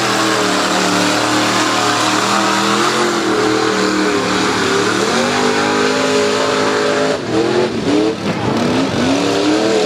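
Mud-bog Jeep's engine at high revs as it plows through the mud pit. The pitch holds, dips about five seconds in, then revs up and down in short bursts from about seven seconds in.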